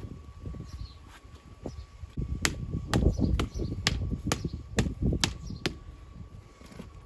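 A tool striking stone about eight times, roughly two sharp taps a second, during stone walling. Birds chirp faintly in the background.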